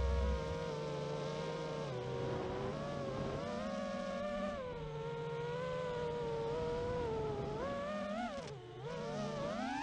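Racing quadcopter's four Emax RS2306 brushless motors whining, the pitch rising and falling with the throttle. Near the end the whine dips sharply and then climbs steeply again.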